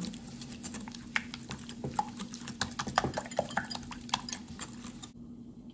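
A wire whisk beating egg yolks and grated cheese in a glass bowl: quick, irregular clicks and taps of the metal wires against the glass. The clicks stop about five seconds in.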